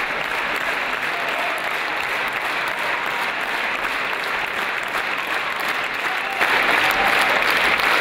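Large audience applauding, a dense steady clapping that grows louder about six and a half seconds in.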